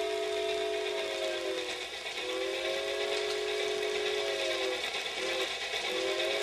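Steam locomotive chime whistle, several notes sounding together, blowing the grade-crossing signal: two long blasts, a short one, then a final long blast that is still sounding at the end.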